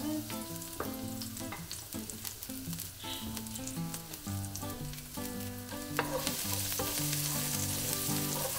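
Chopped garlic sizzling in hot oil in a wok, with light clicks from a wooden spoon stirring it. The sizzle grows louder about six seconds in.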